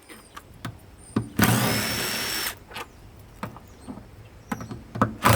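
Cordless impact gun running in a burst of about a second with a steady high whine, hammering out a bolt; a second burst starts right at the end. Scattered metallic clicks and knocks in between.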